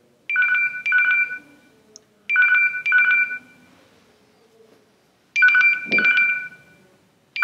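Mobile phone ringing for an incoming call: a ringtone in double rings, sounding three times about two and a half seconds apart.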